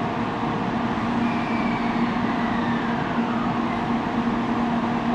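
A 700 series Shinkansen standing at the platform with its onboard equipment running: a steady hum over a constant rushing noise.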